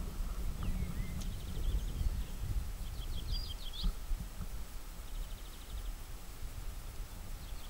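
Uneven low wind rumble on the microphone, with small birds chirping in short rapid runs about a second in, around three seconds in, and again a little after five seconds.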